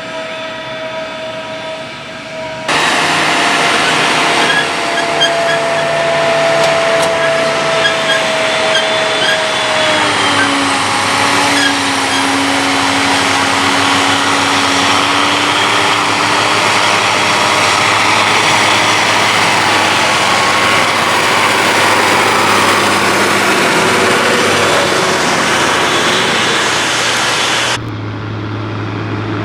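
Heavy forage-harvesting machinery at work: loud engine drone under a dense, steady roar. The sound changes abruptly about 3 s in and again near the end, as the footage cuts between shots.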